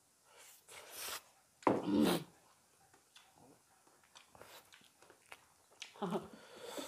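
People eating spicy curry, making breathy hisses and short voiced exclamations: a hiss about a second in, a loud short vocal sound around two seconds, and more vocal sounds with a hiss near the end.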